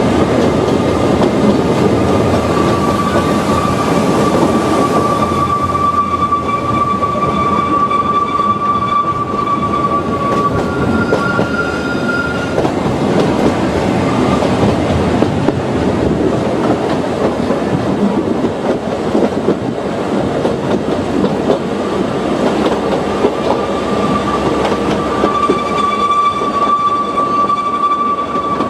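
Ōigawa Railway Ikawa Line train running with a steady rumble and clatter of wheels on rail. A high, steady wheel squeal, typical of flanges grinding on sharp curves, is heard through the first third, again briefly higher around 11 s, and again near the end.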